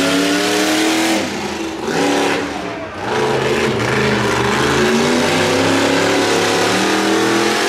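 Monster truck engine revving hard with climbing pitch, easing off a little over a second in, then back on the throttle from about three seconds and holding high.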